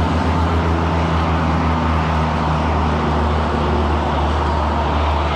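Wind rushing over the microphone of a moving road bicycle, a steady low rumble, mixed with the continuous noise of passing freeway traffic.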